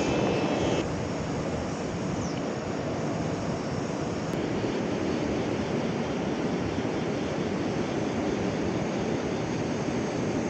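River water rushing steadily, an even noise with nothing standing out.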